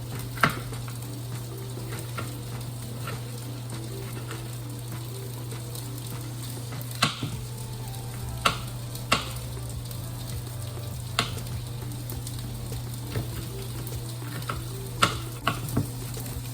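Sausages sizzling in a skillet over a steady low hum, with a few sharp, scattered knocks of a knife striking a cutting board as a green pepper is diced.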